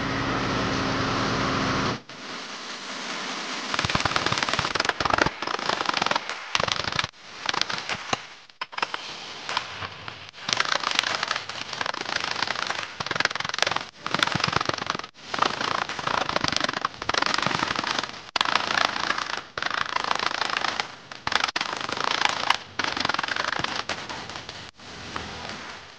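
Rapid, repeated hammer blows on sheet steel clamped between wooden boards in a bench vise, in a run of short bursts that stop and start abruptly. For about the first two seconds a power tool runs steadily.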